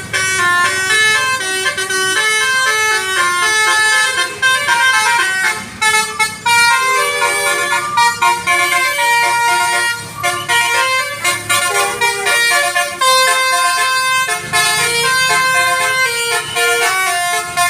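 Bus 'telolet' horn, a multi-tone musical horn, playing a running tune of quick stepped notes with several tones sounding together, broken by only brief pauses.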